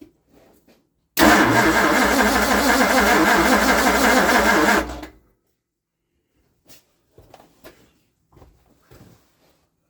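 Ford FE V8 with tri-power carburetors being cranked over by its starter for about three and a half seconds, then stopping abruptly, followed by a few faint clicks.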